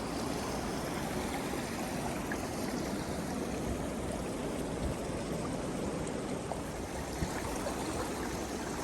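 Steady rushing of strong wind through the forest, heard as an even, distant roar.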